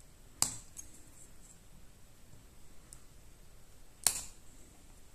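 Plastic pry tool clicking sharply twice, about three and a half seconds apart, with a few faint ticks between, as it works at the snap-on antenna cable connector of a laptop's WWAN card.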